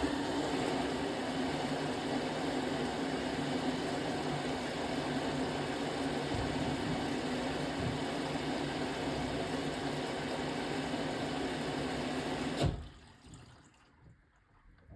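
Beko BM3WT3741W washing machine taking in water: the inlet valve opens suddenly, water rushes in steadily for about thirteen seconds, then cuts off sharply.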